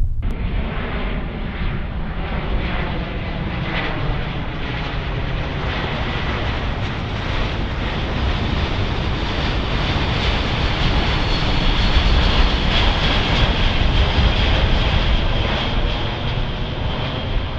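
Four-engine military jet transport plane flying low overhead, its engines giving a steady rushing noise with a high whine that swells toward the middle and eases off near the end.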